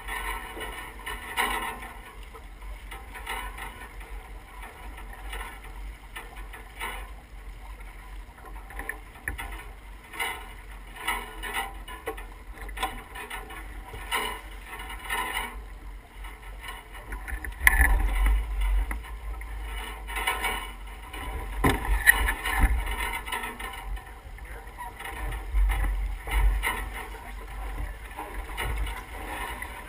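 Water rushing along the hull of a sailboat under way, with wind buffeting the microphone. Past the middle come a couple of louder gusts with sharp knocks.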